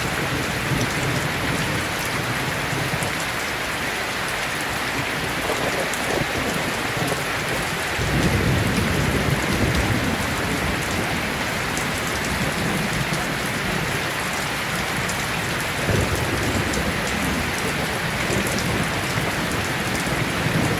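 Heavy, steady rain, with a low rumble of thunder starting about eight seconds in and another near the end.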